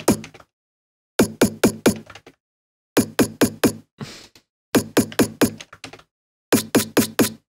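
A live-coded TidalCycles drum loop: a sampled electronic snare made of two layered samples, played in groups of four quick hits, each hit dropping in pitch, with the groups repeating about every 1.8 seconds. A short hiss sounds about four seconds in.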